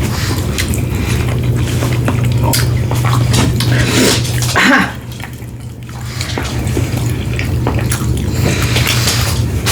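Close-up wet eating sounds: chewing, lip smacks and small clicks, over a steady low hum. It goes briefly quieter about five seconds in.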